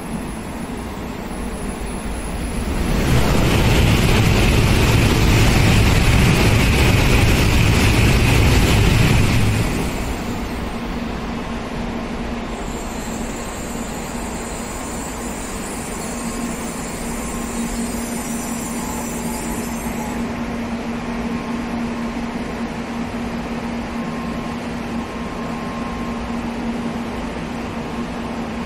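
Shinkansen bullet train passing through the station at speed: a loud rush of noise that builds about three seconds in, holds for about six seconds and drops off sharply, leaving a steady low hum.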